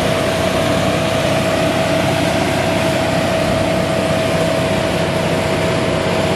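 Heavy truck diesel engines running steadily under load as the convoy hauls a very heavy load uphill: a continuous engine drone with a constant whine over it.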